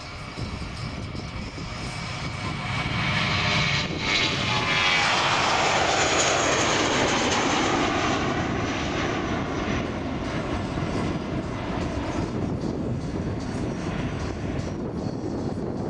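Airbus A320-231's jet engines at takeoff thrust as the airliner passes. The roar builds to its loudest about five to eight seconds in, with its pitch sweeping down as the aircraft goes by, then carries on a little lower and steady.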